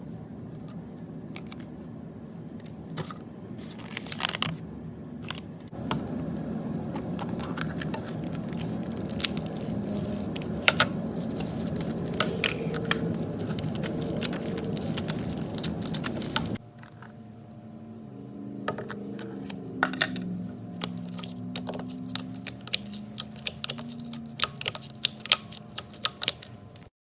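Hands squishing and kneading slime, with many small clicks and crackles as air pockets pop. About two-thirds of the way in the sound changes abruptly and gets quieter, and the sparser clicking and popping carries on.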